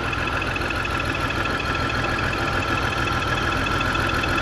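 2002 BMW X5's 3.0-litre inline-six idling with a multiple-cylinder misfire, a steady high whine running over the rumble. The owner puts the misfire down to a failing fuel pump, the fuel pressure reading only about 44 psi.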